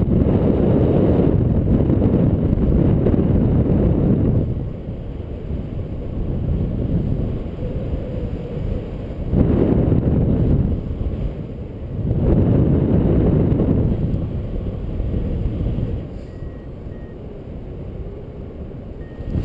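Wind buffeting the microphone of a paraglider pilot's camera in flight. It is a low rushing that swells and fades in gusts, strongest at the start and again around ten and thirteen seconds in.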